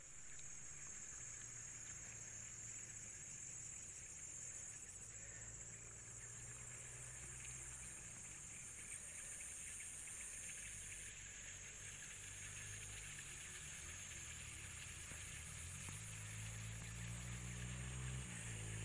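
Faint, steady chorus of insects trilling high and continuously, with a low steady hum underneath.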